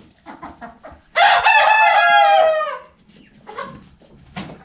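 A young rooster crowing once, a single long call of under two seconds that drops in pitch at the end, with quieter clucks and small sounds from the flock before and after.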